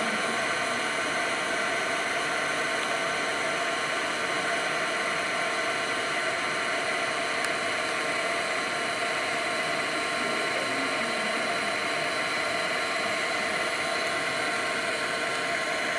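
A steady whirring hiss with several constant tones in it, holding an even level without a break.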